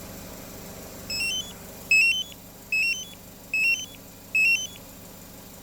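Magicar remote-start alarm chirping five times, each chirp a quick run of three rising electronic tones, about 0.8 s apart, over the steady hum of the remotely started engine idling.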